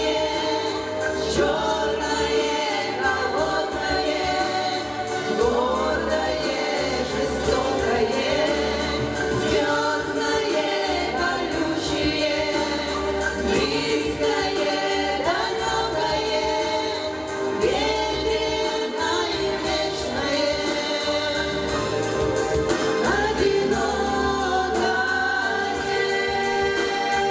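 Female vocal ensemble of four singing a song in harmony into microphones, with a low bass accompaniment beneath the voices.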